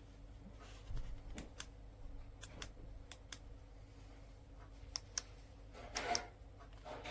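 A string of short, sharp clicks, mostly in close pairs, with a brief rustle near the end, over a faint steady hum.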